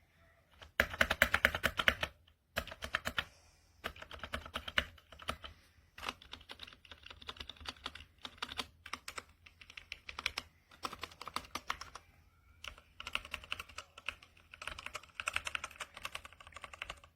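Fast typing on an RK Royal Kludge RK61 60% mechanical keyboard: quick runs of key clicks in several bursts with short pauses between, the loudest burst about a second in.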